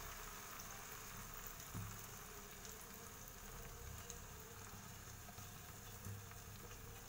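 Beaten egg and chopped onion, tomato and chili frying in sunflower oil in a pan: a faint, steady sizzle with fine scattered crackles as the egg sets.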